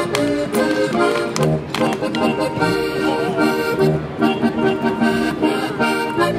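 Accordion-led German folk dance music playing a lively tune with a steady beat.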